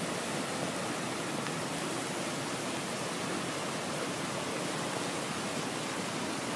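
Flash-flood water rushing along a creek channel: a steady, even rush with no breaks.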